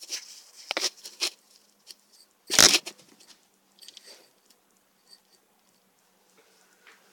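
Handling of a cardboard shipping box: short scrapes and taps on the cardboard, with one loud thump about two and a half seconds in.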